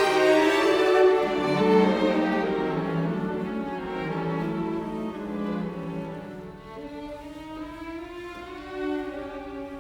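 Background music led by bowed strings, violin and cello, slow sustained notes that grow quieter over the last few seconds.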